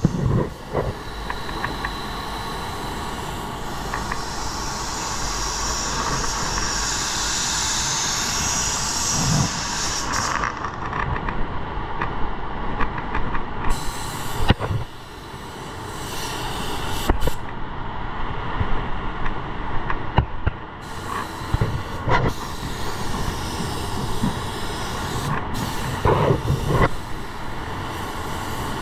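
Automotive spray gun hissing with compressed air as sealer is sprayed onto a panel, with scattered clicks and knocks. The hiss stops and starts several times through the middle of the stretch.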